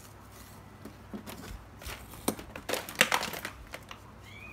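Paper masking tape being pulled off and torn in a few short scratchy rips, then pressed down onto a hard plastic tool case lid. The rips cluster about a second to three and a half seconds in, loudest around the third second.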